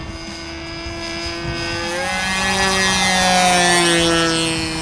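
O.S. Max 46 AX two-stroke glow engine of a radio-controlled model airplane flying past. It grows louder toward the middle, and its pitch drops as the plane goes by.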